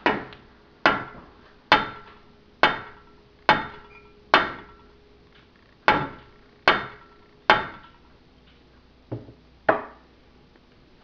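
Rubber mallet striking the elliptical's metal crossbar tube to square it up: about eleven sharp blows, roughly one a second, in three runs of six, three and two. Each blow leaves a short metallic ring.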